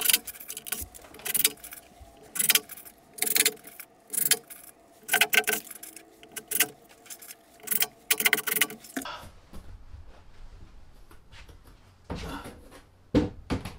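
Irregular clusters of sharp metallic clinks and clicks as small screws and a driver are handled while a shower sidewall is screwed to its pan. After about nine seconds this gives way to a low rumble with a couple of knocks near the end.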